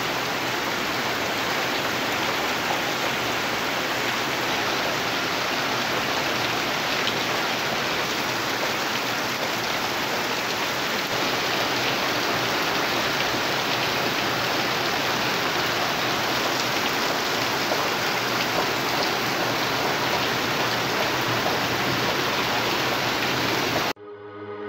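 Heavy rain falling steadily, a dense even hiss. Near the end it cuts off abruptly and electronic outro music starts.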